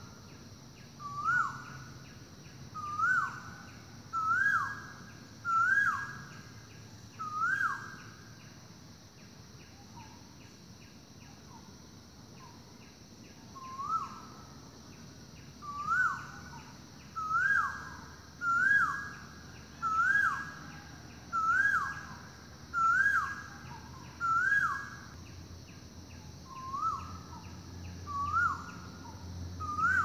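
Asian koel calling: a repeated rising two-part "ko-el" note, about one every second and a half. There is a pause of several seconds about a third of the way in before the series starts again.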